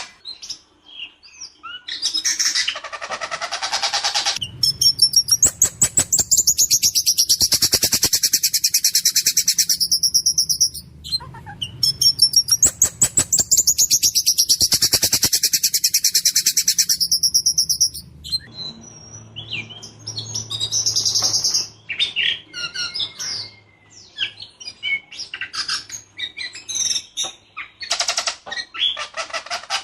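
White-rumped shama singing loudly: two long runs of rapid, harsh repeated high notes with fast stuttering rattles, then shorter, varied whistled phrases and chips.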